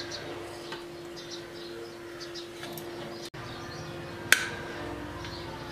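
A knife cutting through a soft cake on a steel plate, with one sharp metallic tap of the blade on the plate a little past the middle that rings briefly. A steady low hum runs underneath.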